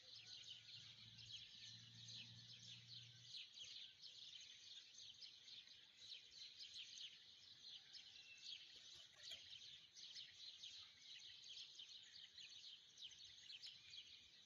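Near silence with faint, dense high-pitched bird chirping in the background, many quick chirps overlapping.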